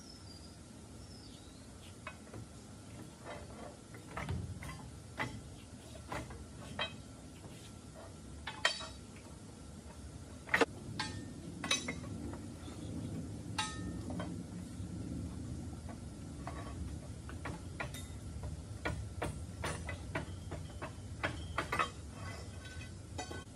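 Scattered metallic clinks and knocks of a steel pry bar working against a Hendrickson walking beam on a truck's rear suspension as the beam is levered. A low rumble runs under them through the second half.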